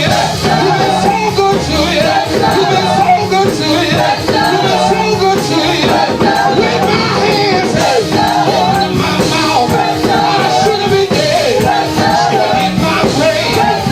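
Live gospel praise music: a band with bass and a shaker or tambourine keeping time under congregational singing.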